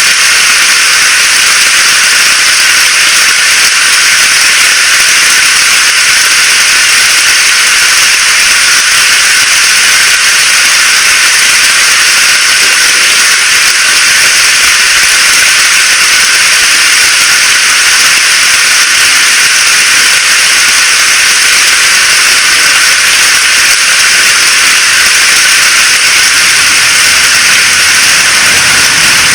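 Steady rainfall, a dense, even hiss that stays constant throughout with little low rumble.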